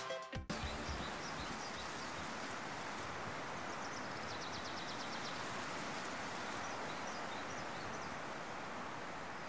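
Quiet outdoor ambience: a steady background hiss with faint, scattered bird chirps and a short fast trill about four seconds in.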